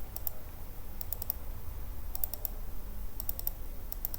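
Computer keyboard keys tapped in short bursts of three or four quick clicks, about once a second, over a steady low hum.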